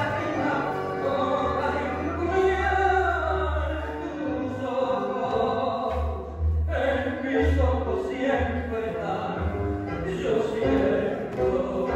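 Recorded tango song: a singer's voice over instrumental accompaniment with sustained bass notes.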